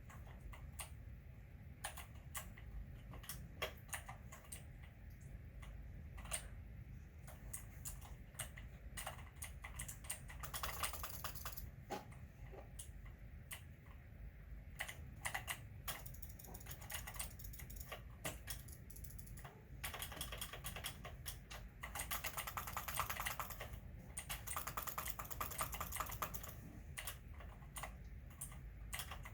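Typing on a computer keyboard: irregular keystrokes with several quick runs, the longest and busiest in the second half.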